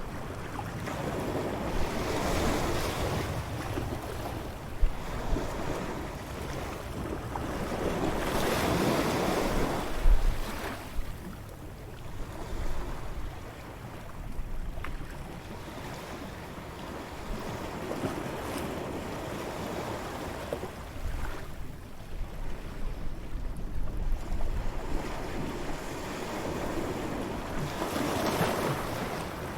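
Ocean waves breaking and washing up a beach, the surf swelling and fading every several seconds, with wind buffeting the microphone.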